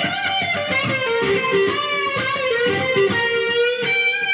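Fender Stratocaster electric guitar playing a single-note G minor lick, with notes bent and slid into pitch and a note held near the end.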